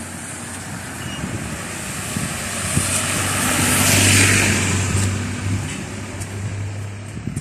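A van drives past close by on wet asphalt. Its engine hums steadily and its tyres hiss on the wet road, swelling to a peak about four seconds in as it passes and then fading.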